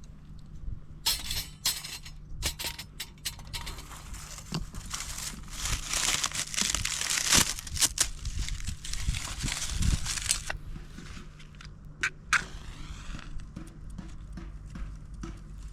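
Crinkling and rustling of something being handled, with many sharp clicks and knocks, heaviest in the middle, then a few separate clicks over a low steady hum.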